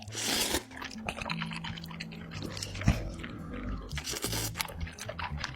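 Wet eating sounds of spicy Samyang noodles and chicken being slurped and chewed: many small clicks with a couple of longer noisy slurps, near the start and about four seconds in, over background music.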